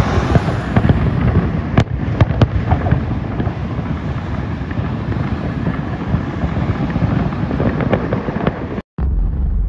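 Aerial fireworks display: a dense, continuous run of crackling and bangs with sharp reports standing out. It cuts off abruptly near the end, giving way to a low rumble.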